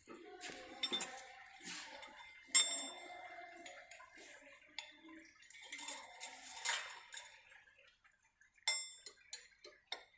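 Light metallic clicks and clinks as the steel wire mesh and sprocket wheels of a chain link fence weaving machine are handled and adjusted by hand. There is a sharper ringing clank about two and a half seconds in and another near the end.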